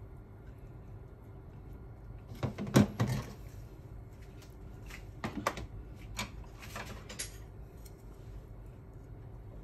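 Kitchenware being set down and handled on a stainless steel counter: a cluster of knocks about two and a half seconds in, the loudest, then lighter clicks and taps a few seconds later.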